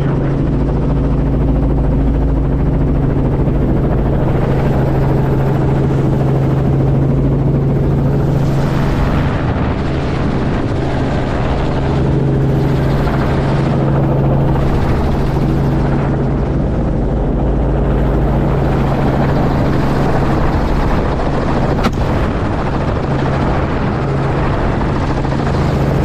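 Helicopter in flight heard from on board: a steady drone of rotor and engine with a rush of air noise. There is one brief sharp click about 22 seconds in.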